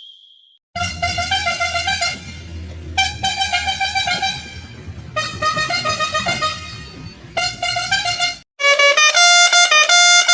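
Bus horn sounding in four long blasts, one after another, over a steady low engine rumble. A little over 8 seconds in it gives way to a remixed tune of quick plucked notes.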